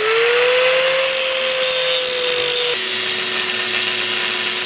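Handheld angle grinder running at full speed, its whine settling as it finishes spinning up, over the hiss of the disc grinding down a weld on threaded rod. About halfway through, the pitch drops a step as the disc bears harder on the metal.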